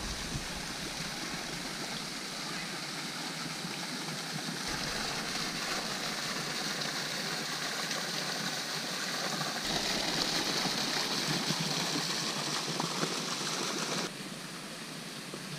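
Small waterfall pouring into a natural pool: a steady rush of falling water that steps up and down abruptly a few times, loudest from about ten to fourteen seconds in.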